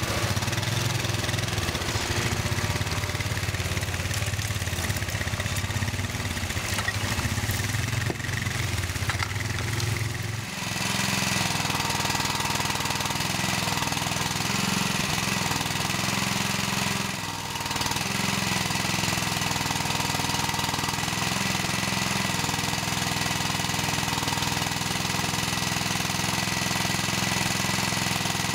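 Engine running steadily as the ATV and its hydraulically driven forestry trailer crawl through mud. About ten seconds in, the sound changes to a small petrol engine running the crane's hydraulics, its note rising and falling repeatedly as the crane works.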